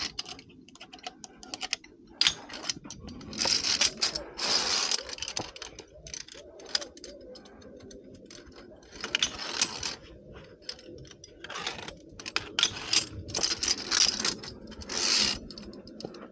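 Via ferrata climbing gear in use: many small clicks, clinks and scrapes from carabiners and hands on the steel cable and rock. Several loud rushes of noise, each about a second long, come in between.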